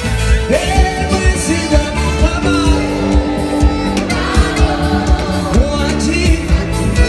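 Gospel worship music: singing over a band, with held notes and a steady drum beat.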